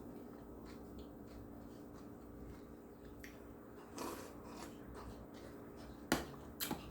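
Quiet eating sounds over a faint steady room hum, with two sharp clicks near the end.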